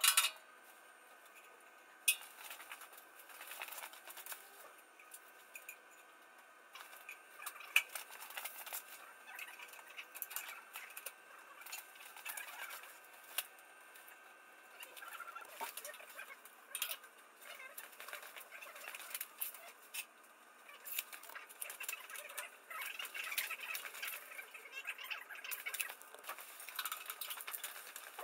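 Small clicks, taps and scrapes of hand work with copper refrigeration pipe and fittings on a steel unit frame, with a few sharp clicks standing out near the start and about eight seconds in.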